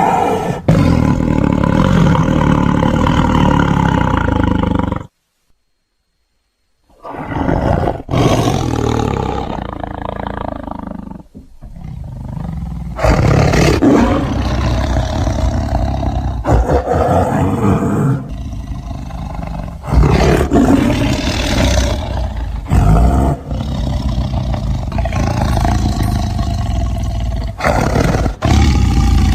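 Tigers roaring in a run of spliced clips, with abrupt cuts between them and a brief silent gap about five seconds in.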